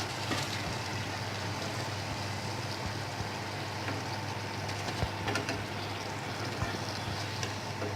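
Pakon pitha deep-frying in hot oil in a kadai, a steady sizzle with a few light clicks, under a constant low hum.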